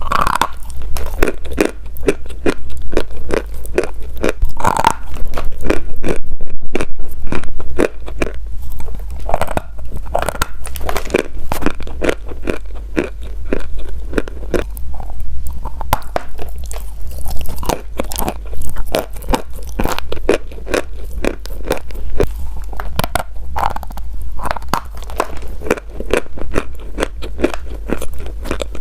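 Close-miked crunching and chewing: repeated bites into something hard and crunchy, followed by dense, irregular crackling as it is chewed.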